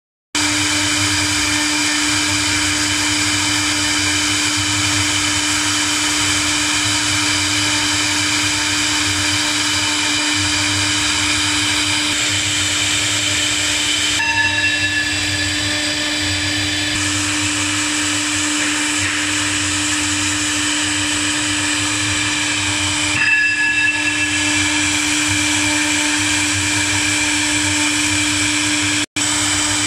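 Twin 4.5 kW air-cooled spindles of a double-head CNC router running at speed while engraving, with the hiss of the cutters in the workpiece under a steady high whine. The sound cuts out for a moment near the end.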